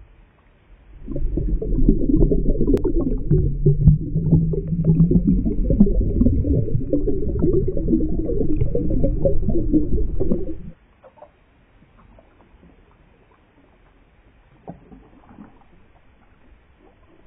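Muffled underwater churning and bubbling of lake water around a submerged action camera, dense and low-pitched. It starts about a second in and cuts off abruptly about ten and a half seconds in.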